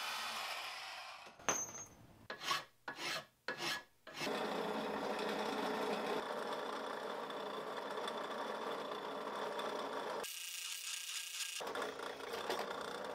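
Power tools working a 5/8-inch cold-rolled steel bar. A band saw cuts it with a steady rasp, then come four or five short separate strokes around two to four seconds in. After that a bench drill press drills into the steel with a long steady grinding noise, broken briefly by an edit.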